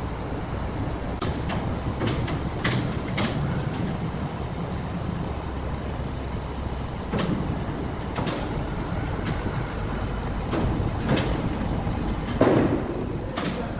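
Heavy machinery running with a steady low rumble, struck by irregular sharp metallic clanks and knocks, the loudest one near the end.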